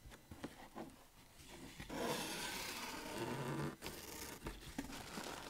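Plastic packaging crinkling and rustling as hands pull it out of a cardboard shipping box, much louder from about two seconds in.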